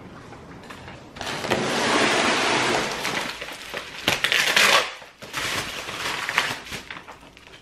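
Plastic grocery packaging rustling and crinkling as it is handled. There are long crackly stretches, with one sharp crack about four seconds in.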